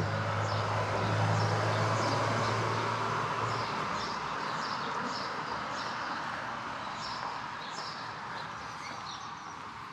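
Street traffic: a vehicle's engine hum and tyre noise slowly fading, the hum dropping out about three and a half seconds in. Over it, birds give short, repeated chirps.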